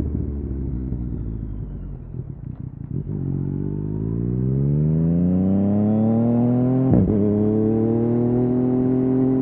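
Yamaha MT-09's inline-three engine through an Akrapovic exhaust: it rolls off the throttle with a few crackles, then pulls hard with the revs climbing. About seven seconds in there is a sharp break as the quickshifter snaps an upshift without the clutch, and the revs climb again.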